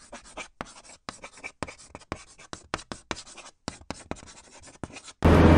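Scratchy strokes of writing on paper, about a dozen short strokes with brief gaps between them. Near the end it gives way suddenly to a loud steady hum of traffic and a voice.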